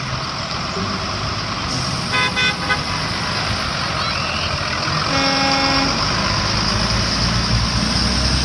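School buses driving past on a wet road: a steady wash of engine and tyre noise. A few short horn toots come about two seconds in, and a single horn honk lasting about a second just after five seconds in.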